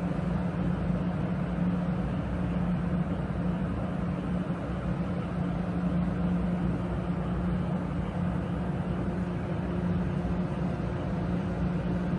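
JR 415 series electric train giving off a steady electrical hum from its onboard equipment, with no change in pitch or level.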